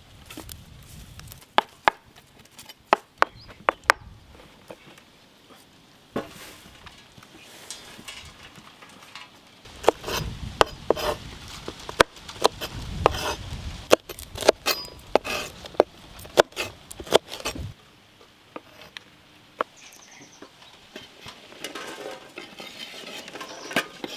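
A large knife chopping green chillies on a wooden cutting board: sharp chops in irregular runs, with quieter stretches between.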